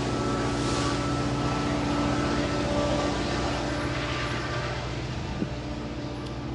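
KCS diesel-electric locomotive hauling a hopper train, its engine running with a steady, even drone that grows a little fainter as it moves away.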